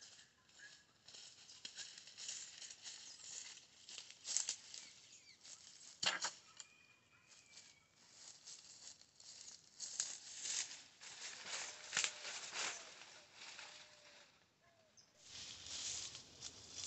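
Dry leaves and brush crackling and rustling as someone moves through them gathering sticks, with one sharp snap about six seconds in.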